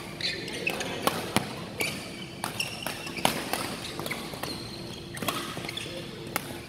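Badminton doubles rally: a string of sharp racket hits on the shuttlecock, with short squeaks of court shoes on the floor between the shots.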